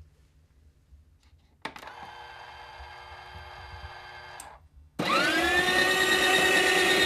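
Krups espresso machine's built-in coffee grinder: a quieter steady mechanical hum starts about a second and a half in and stops with a click, then at about five seconds the grinder motor starts loud, spins up with a rising whine and runs on steadily. The grinder is noisy but the beans are not going through, a fault in the brand-new machine.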